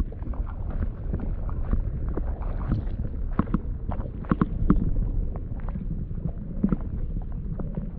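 Low rumble of river water and wind buffeting the microphone, with scattered knocks and splashes, a few sharper ones about four seconds in.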